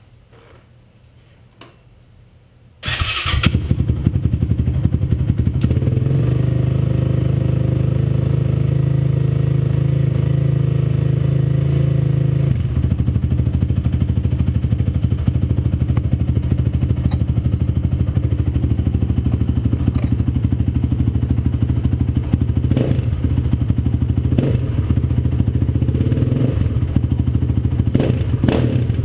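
Honda TRX450R ATV's single-cylinder four-stroke engine starting about three seconds in, then idling. It runs at a faster idle at first and settles to a lower steady idle about twelve seconds in.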